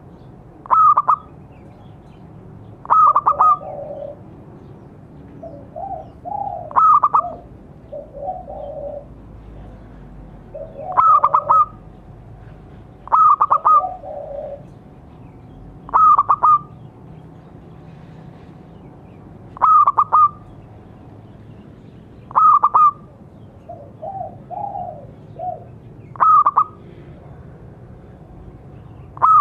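Zebra dove (perkutut) calling: about ten loud, short stuttered coos, one every two to four seconds, with softer, lower coos between several of them.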